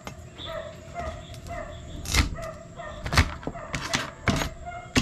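A cleaver chopping through cooked mud crabs onto a wooden cutting board: a few sharp chops from about two seconds in.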